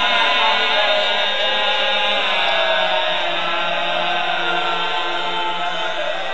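A crowd of mourners crying out together in lament: many overlapping, drawn-out voices, steady throughout.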